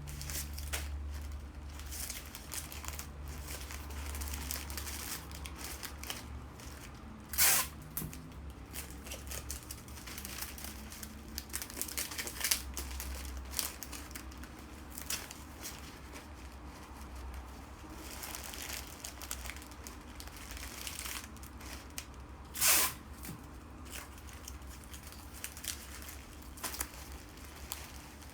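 Bouquet wrapping material crinkling and rustling as it is handled, with many small clicks and two short, loud tearing sounds, one about seven seconds in and one about twenty-three seconds in, over a low steady hum.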